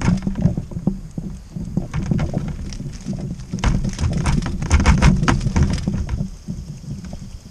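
A crab trap being hauled in and handled on a kayak: a run of clattering knocks and dull thuds, busiest about four to six seconds in, then dying down near the end.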